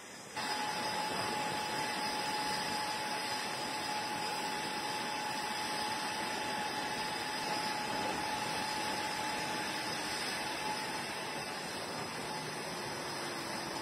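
Steady machinery noise with a constant high whine, starting abruptly about half a second in.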